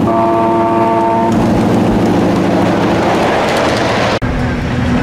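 Miniature ride-on diesel-outline locomotive's horn sounding a chord until about a second in, then the train rumbling past close by, the noise building. About four seconds in the sound cuts abruptly to a steady low hum.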